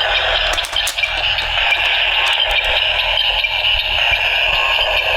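Electronic sound effect from a DX W Double Ridewatch toy's small speaker: a steady, hissing, static-like noise with a low hum under it and a few faint clicks.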